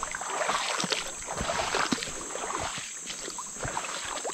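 Footsteps sloshing and splashing through shallow floodwater over the forest floor, irregular wading steps, over a steady high insect drone.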